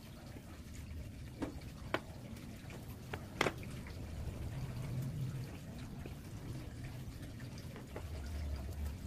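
Small sonokeling wood segments clicking and knocking lightly as they are set down and pushed together on a tabletop: a few sharp clicks in the first half, the loudest about three and a half seconds in, over a steady low hum.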